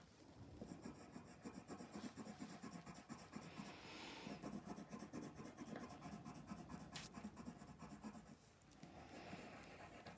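Coloured pencil shading on paper: faint, quick scratching strokes, with one sharp tap near the end.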